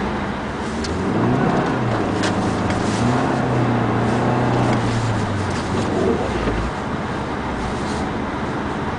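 Cabin sound of a 2007 Subaru Forester XT under way: its turbocharged flat-four engine note rises about a second in, holds steady for a few seconds and then drops away, over a constant rush of wind and road noise.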